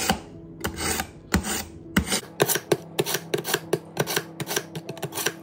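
Hollow-edge kitchen knife drawn again and again through a pull-through knife sharpener, a rasping scrape with each pull. The first few strokes are slower and longer, and from about two seconds in they come quicker and shorter, about three or four a second. The blade has gone dull and is being sharpened.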